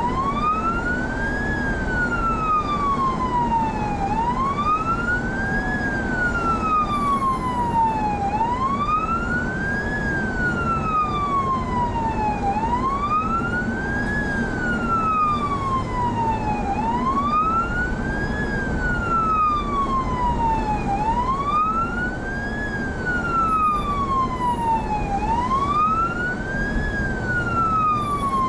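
Police car's electronic siren on a wail: the tone rises quickly, falls more slowly, and repeats about every four seconds. Road and engine rumble from the moving car runs underneath.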